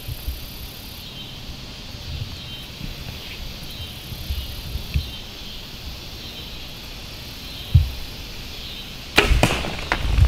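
A single gunshot at a whitetail buck about nine seconds in, a sharp crack followed by scuffling as the deer bolts. Before it there is only a quiet, steady outdoor hum.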